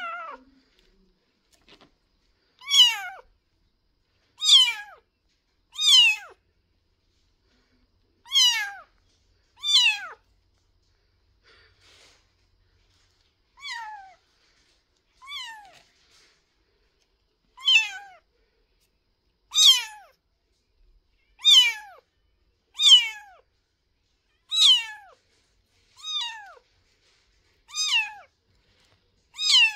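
A young kitten mewing over and over: about fifteen short, high cries, each falling in pitch, one every couple of seconds. These are the calls of a kitten left without its mother.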